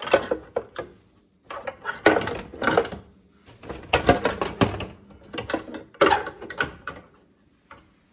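Clattering knocks and clicks of hard parts being handled, in several bursts of a second or so with short pauses between.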